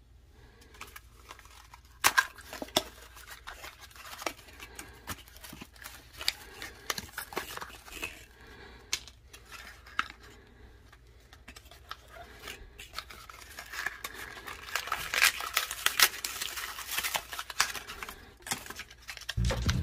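Cardboard box and plastic blister packaging of a yo-yo being handled and pulled open by hand: scattered sharp clicks, crackles and tearing, getting busier and louder in the last several seconds.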